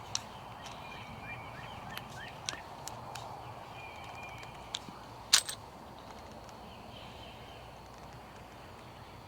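Scattered small metal clicks of a flat-blade screwdriver tightening a hose clamp on a garden hose fitting, one sharper click about five seconds in, with birds chirping in the background.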